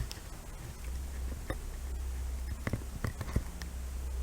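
A few faint, scattered taps and clicks over a low steady hum.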